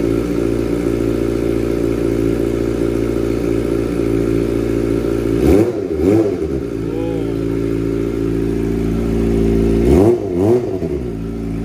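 Kawasaki Ninja ZX-25R's 250 cc inline-four idling through a WRX aftermarket slip-on exhaust. There are two quick throttle blips about halfway through and another two near the end.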